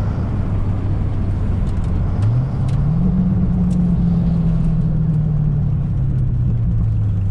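Car engine heard from inside the cabin while driving, over a steady low rumble of tyre and road noise. Just after two seconds in the engine revs up under throttle, holds, then slowly drops back as the driver eases off. A few faint ticks.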